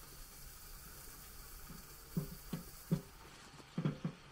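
Food sizzling faintly on a hot round steel griddle plate as meat and sausages are turned with tongs. A few short, louder low sounds come in a cluster from about halfway through to near the end.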